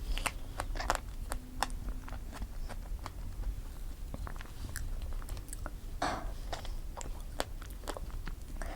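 Close-miked chewing of strawberry cream cake: irregular soft mouth clicks and smacks, with a brief fuller mouth sound about six seconds in and another near the end.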